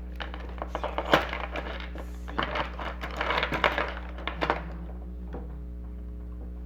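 Small hard parts clicking, rattling and knocking together as toy pieces and screws are handled and moved about while hunting for a missing screw, with the sharpest knocks about a second in and again around three and a half seconds in. A steady low hum sits underneath.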